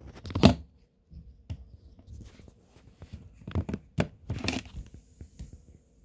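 Rustling and crinkling bursts broken by several sharp clicks, the loudest burst about half a second in and another cluster of clicks and rustling around four seconds in.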